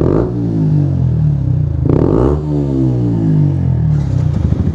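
Yamaha 125 cc single-cylinder motorcycle engine through a loud aftermarket exhaust, revved twice about two seconds apart, the pitch falling away after each rev.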